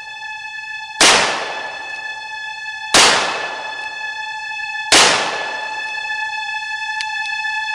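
Three gunshot sound effects about two seconds apart, each sudden and loud with a reverberant tail, over a sustained high musical tone.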